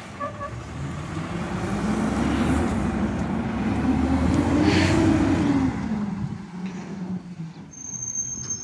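Front-loader garbage truck's diesel engine revving, swelling to its loudest about four to five seconds in and then dying away, with a brief hiss near the peak.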